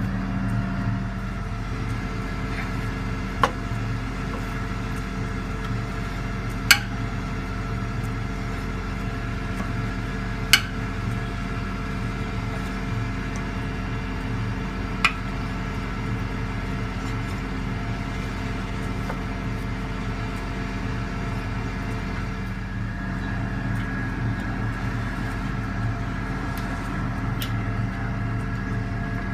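Link-Belt 8065 crane's engine idling steadily, with four sharp clicks or knocks a few seconds apart in the first half.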